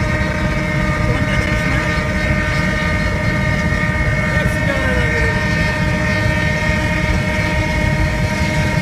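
Steady cabin noise of a car cruising at constant speed: a low road and engine rumble with a steady whine of several tones that holds its pitch.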